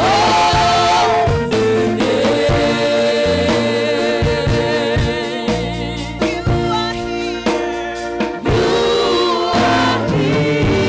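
Gospel worship music: voices singing long held notes with vibrato over a backing band, with drum hits.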